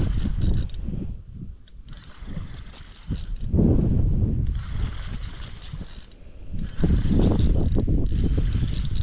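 Spinning reel being cranked fast to bring in a hooked redfin perch, its gears giving a rapid whirring click, over a heavy low rumble of wind on the microphone.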